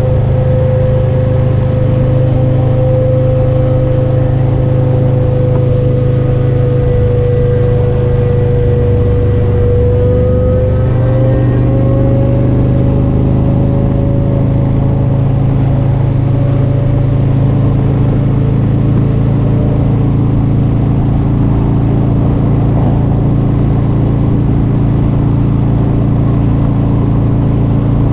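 Motorcycle engine running steadily at cruising speed on the move. Its pitch dips slightly and then rises a little about ten seconds in.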